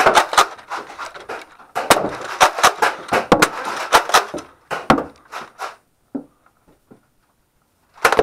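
Rapid clacks and knocks of Nerf blasters being primed and fired, with darts striking things, dying away about six seconds in.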